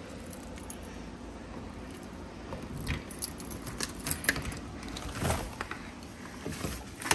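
Keys jangling, then a run of sharp metallic clicks and rattles from about two and a half seconds in as a front door's brass deadbolt and knob lock are unlocked.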